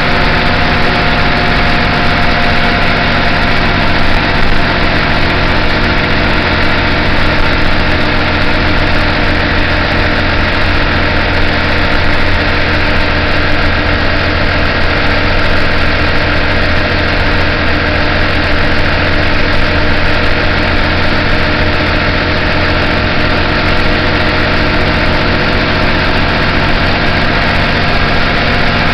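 City bus diesel engine running steadily, heard loud inside the passenger cabin through the open engine hatch.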